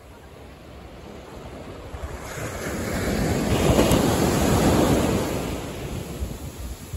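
Ocean surf breaking on a beach: the wash swells to its loudest near the middle, then eases off, with wind buffeting the microphone.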